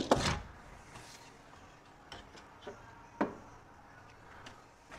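A clunk right at the start, then a few faint, scattered knocks and taps, the sharpest about three seconds in: a long spirit level and shims being handled and set down on a wooden window sill.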